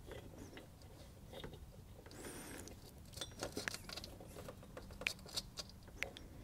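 Faint scattered small clicks and rustling from a hand tightening a wing nut onto a bolt through a heat sink, with the metal washers and hardware ticking. The clicks come more often in the second half.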